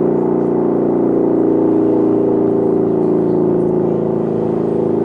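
Lion King LK JDL400 2.2 kW electric motor siren sounding a loud, steady wail at an even pitch. It is a short test blast, not brought up to the siren's full power.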